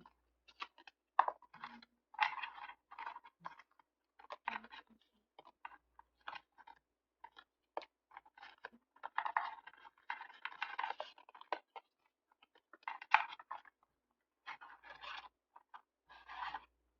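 Paper being handled during journal decorating: irregular crinkling and rustling with small taps and scratches, in a few longer crackly stretches.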